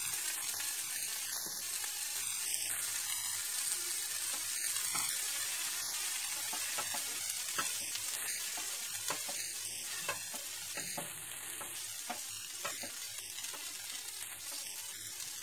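Potato stuffing of boiled potato, peas, corn and peanuts sizzling in oil in a nonstick frying pan, with a spatula stirring and breaking it up and scraping and tapping lightly against the pan at irregular moments.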